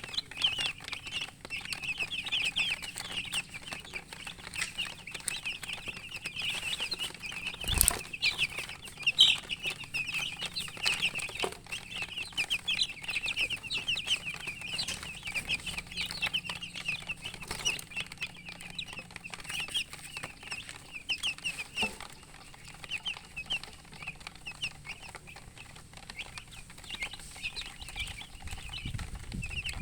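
A group of baby chicks peeping: many short, high chirps overlapping almost continuously, growing sparser in the last third. A single knock about eight seconds in.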